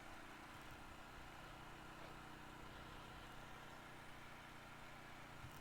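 CFMOTO CForce 500 ATV's single-cylinder engine running steadily, faint and even.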